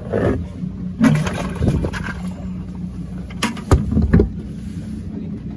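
Boat's Mercury 400 outboard idling as a steady low hum, with wind buffeting the microphone and a few sharp knocks about three and a half to four seconds in.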